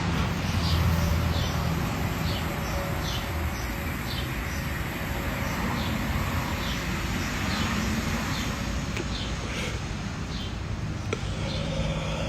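A long, steady draw on a vape pen held until it blinks (a 'blinker'), with small birds chirping about twice a second behind it.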